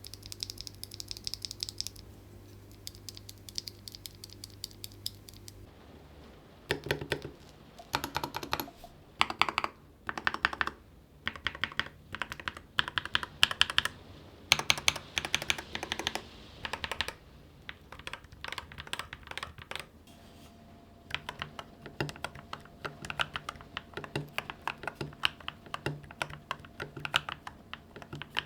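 Mechanical keyboard with Akko V3 Cream Yellow Pro linear switches, typed on in quick bursts of key presses with short pauses between them.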